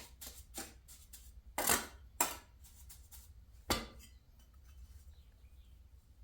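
Trowel scraping and slapping mortar onto a concrete footing, pressing it into the grooves: a run of short scrapes, the loudest about two seconds in and a last sharp one near four seconds, then only faint small sounds.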